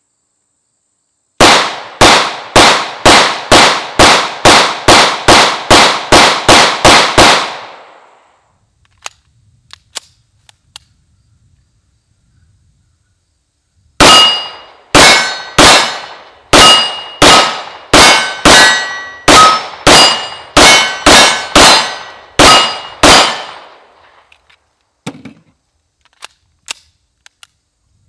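CZ 75 P-01 9mm pistol firing two strings of about fourteen shots each. The first comes quickly, a little over two shots a second. The second is slower, with a metallic ring after many shots from steel targets being hit.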